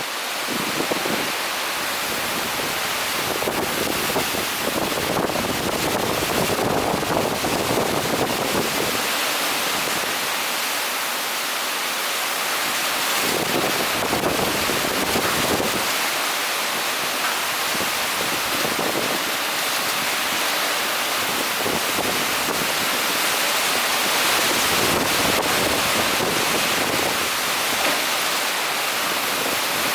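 Typhoon-force wind and heavy rain: a steady loud rushing hiss, with gusts every few seconds that buffet the microphone with a low rumble.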